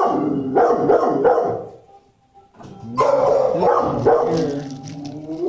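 Dog barking in two spells, each about two seconds long, with a short quiet pause between them.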